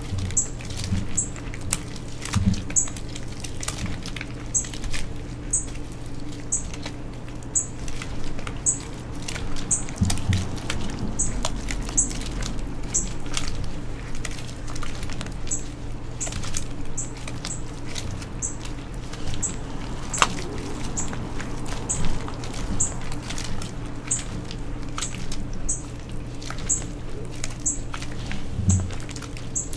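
Dyed chalk being crushed, a continuous run of small, crisp crunches and crackles with an occasional soft low thump, over a faint steady hum.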